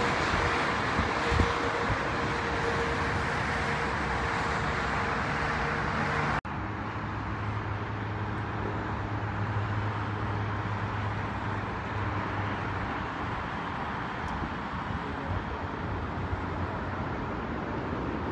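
Airbus A320-family jet on final approach, its engines giving a steady whine over passing road traffic. About six seconds in the sound cuts abruptly to a quieter, duller background of road traffic with a low steady hum.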